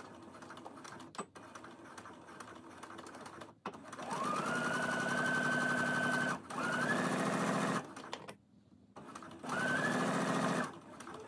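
Baby Lock Brilliant sewing machine stitching fabric. After a few quiet seconds with small handling clicks, the motor's whine rises quickly about four seconds in and holds steady. It stops briefly, runs again, pauses for about a second, then runs once more near the end.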